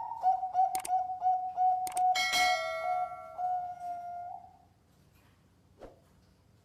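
Zebra dove (perkutut) cooing: a rising opening note, then a run of short, even notes at about three a second that stops about four and a half seconds in. A bright metallic ring sounds about two seconds in and fades over a second or two.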